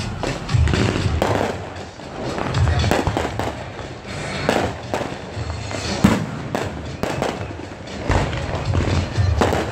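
Fireworks display going off in quick succession: repeated sharp bangs and crackling bursts, with deep booms in places.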